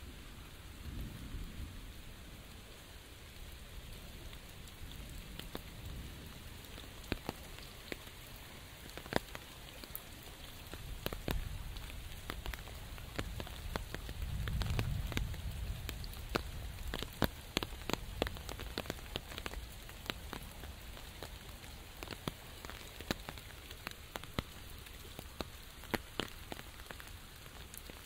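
Steady rain with many sharp, irregular ticks of drops striking an umbrella canopy overhead. A low rumble swells and fades about halfway through.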